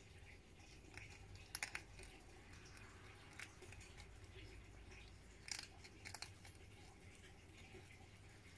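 Hedgehog crunching dry food from a dish: scattered sharp crunches and clicks, the loudest a quick pair about a second and a half in, with more about halfway through.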